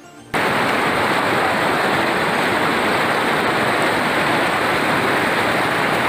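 Waterfall: a loud, steady rush of falling water that starts abruptly a moment in.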